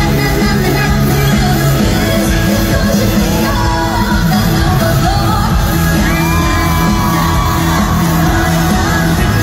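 Live pop music through an arena sound system, with a sung vocal line of held and gliding notes over a steady bass, and shouts and whoops from the audience.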